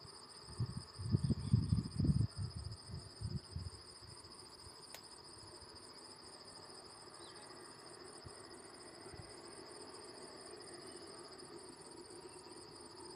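Soft, irregular bumps and rustles of hands working a roll of insulating tape around motorcycle wiring during the first few seconds. Under them runs a steady, high-pitched chirring of insects, pulsing quickly.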